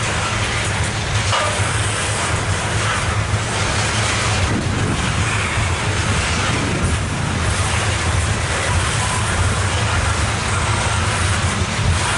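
Loaded coal hopper cars of a CSX freight train rolling past: steel wheels on rail making a steady low rumble.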